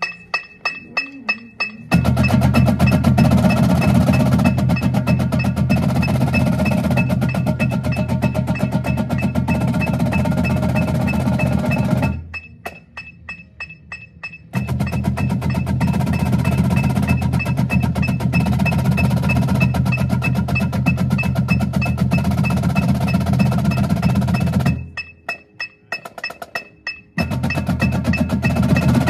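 Marching drumline battery, snare drums and bass drums, playing a warmup exercise together. It opens with a few separate strokes, then the full line plays dense, fast passages about two seconds in, dropping back to sparse single strokes for a couple of seconds about halfway through and again near the end before picking up once more.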